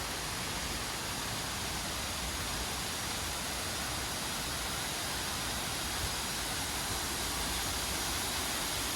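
Steady rush of a waterfall, an even noise that holds constant.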